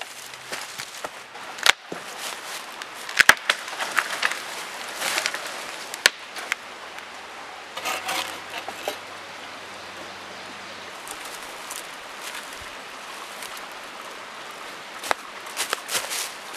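Sharp wood knocks and cracks from a small tree being cut and handled, with footsteps crunching through dry leaf litter near the end.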